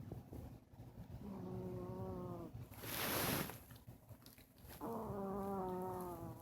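Chihuahua snoring in its sleep: a pitched, buzzy snore about a second long, then a loud hissing breath, then a second pitched snore near the end.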